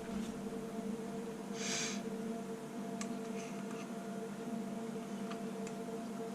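A steady low hum with several fixed tones, as from bench electronics. A short breathy hiss comes about two seconds in, and a few faint light clicks follow.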